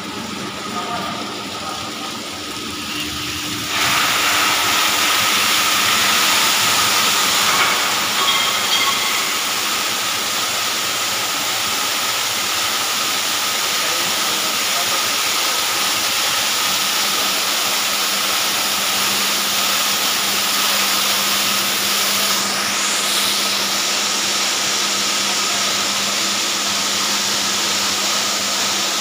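Fire sprinkler system spraying water over a transformer: a steady loud hiss of spray that jumps up in level about four seconds in and then holds. A steady low hum runs underneath.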